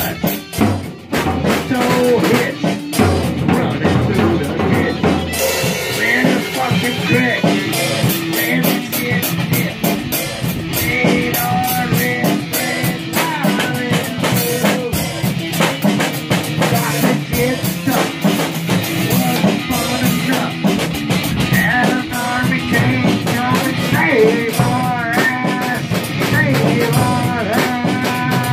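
A live rock band jamming loud: a drum kit with snare, bass drum and cymbal hits driving a steady beat, under electric guitar played through an amplifier.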